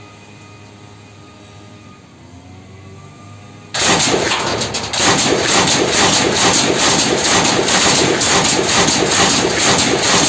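A 7.62 mm belt-fed light machine gun firing on full automatic. After a few seconds of low, steady background hum, a loud burst of rapid shots starts, breaks off for a moment, then carries on as one long unbroken burst.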